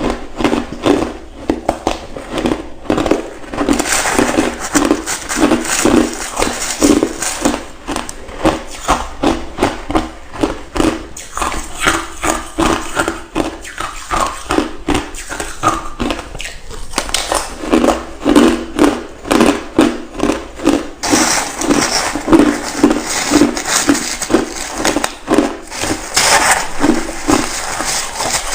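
Close-miked crunching and chewing of ice, a steady run of sharp crunches about two a second.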